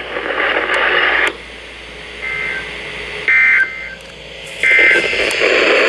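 NOAA Weather Radio broadcast sending the EAS end-of-message data bursts, which close the weekly test: three short two-tone digital bursts about a second apart, the first fainter. Radio hiss runs before and after them.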